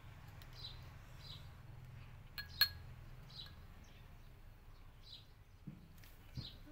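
A metal spoon clinks twice in quick succession against a ceramic bowl or plate, briefly ringing, about two and a half seconds in, over short high bird chirps repeating every second or so.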